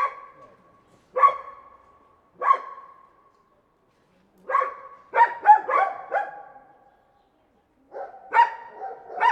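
A dog barking: three single barks about a second apart, then a quick run of about five barks around the middle, and another run of barks near the end.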